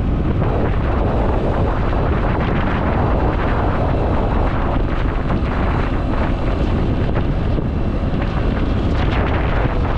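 Heavy wind noise buffeting the microphone while riding a motor scooter, a steady loud rush that covers any engine sound.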